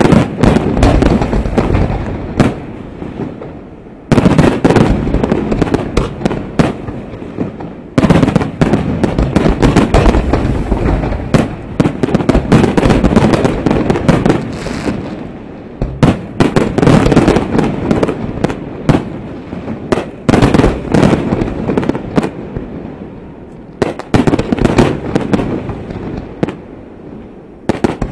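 Aerial fireworks shells bursting in a dense, rapid barrage of sharp bangs and crackles. The barrage comes in surges with brief lulls, picking up again about four, eight, sixteen and twenty-four seconds in.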